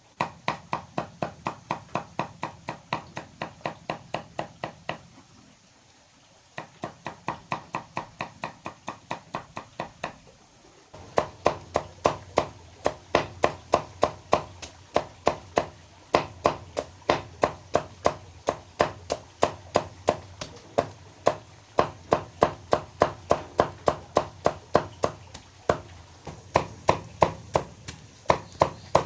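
Rapid, even chopping strokes, about four a second, in three runs with short pauses about five and ten seconds in.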